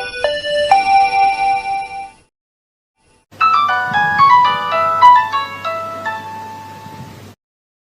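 Nokia mobile phone ringtones: one melody of quick electronic notes ends about two seconds in, and after a short silence another ringtone melody of quick notes plays and fades out before stopping.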